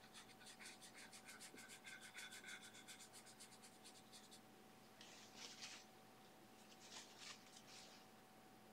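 Faint scratching of a hog-bristle filbert brush scrubbing oil paint onto a smooth primed aluminium composite panel, in quick short strokes of about six a second for roughly four seconds. Two brief, softer scrapes of the brush follow.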